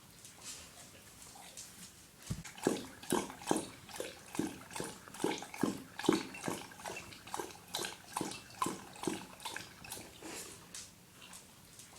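A dog lapping water from a bowl: a regular run of wet laps, about two to three a second. They grow louder a couple of seconds in and fade toward the end.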